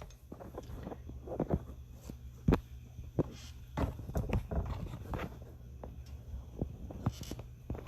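Irregular knocks and clicks of cookware and utensils being handled, the loudest about two and a half seconds in, over a steady low hum.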